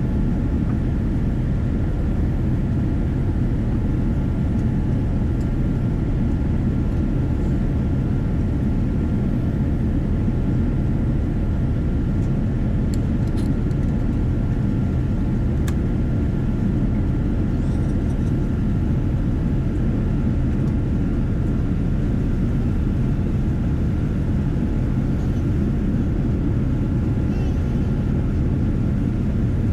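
Steady low rumble of engine and airflow noise inside a Boeing 787 airliner cabin, with a faint steady tone and a couple of small clicks about halfway through.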